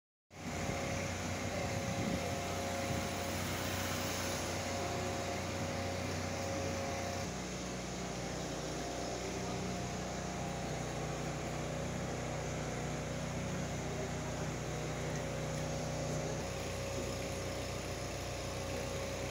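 Car driving: a steady engine hum and road noise, the engine note shifting higher about seven seconds in.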